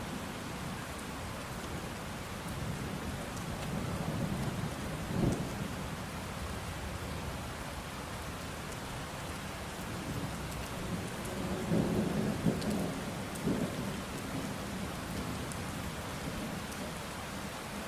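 Steady rain with two rolls of thunder: the first swells and peaks about five seconds in, and the second rumbles from about ten to fourteen seconds with several peaks.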